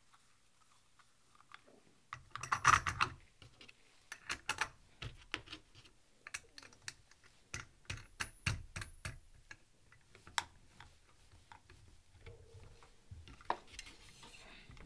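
Handling noise from fitting a fly line's shipping spool onto a wooden line winder and moving the metal fly reel on it: irregular clicks, taps and knocks, loudest about two and a half seconds in and thinning out after about eleven seconds.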